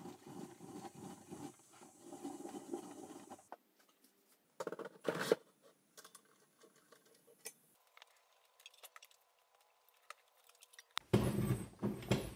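Metal drill press parts being assembled. A rapid rattling chatter from the table bracket's crank and gear on the column rack runs for the first few seconds, a heavy clunk comes about five seconds in as the cast table goes on, and a loud knocking scrape near the end is the head being fitted onto the column.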